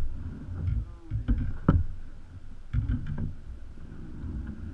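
Wind rumbling on the microphone and water slapping against the kayak hulls, with a few sharp knocks.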